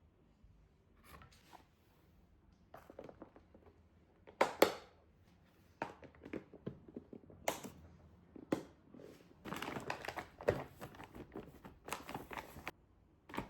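Irregular handling sounds: crinkling and rustling with several sharp knocks, the loudest about four and a half seconds in.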